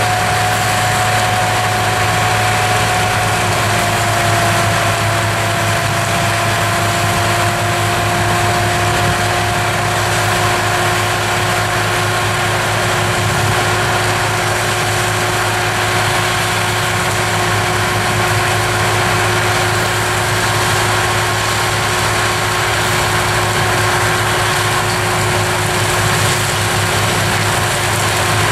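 Tractor engine running steadily under load, driving a forestry mulcher whose rotor grinds poplar wood and soil, a dense steady noise with a constant whine that dips slightly in pitch about three seconds in.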